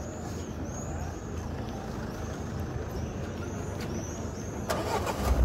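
Steady low rumble of motor traffic, with a louder, hissing surge of a passing heavy vehicle near the end. A high, thin chirp repeats about three times a second throughout.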